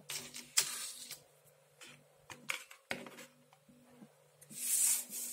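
A plastic-and-foil blister pack of tablets handled and moved on a tabletop: a few light clicks and crinkles, then a brief rubbing swish near the end.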